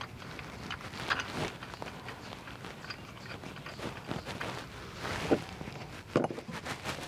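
Irregular light metal knocks and scrapes of hands working a heavy truck driveshaft's U-joint into its yoke, the loudest about five seconds in.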